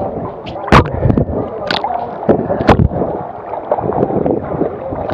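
Sea water sloshing and gurgling around a camera held at the surface, with several sharp slaps of small waves against it.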